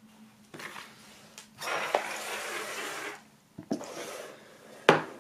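Handling noise: a rustle lasting about a second and a half, then a few light knocks, the last one a sharp click.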